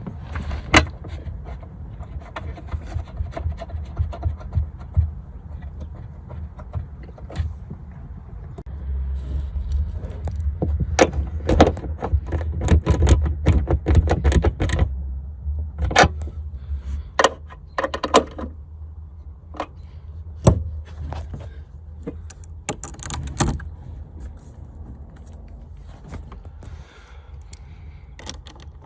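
Metal clinks, clanks and scrapes of hand tools and car parts being handled during a car battery swap, as a long run of sharp clicks that is busiest in the middle, over a low rumble.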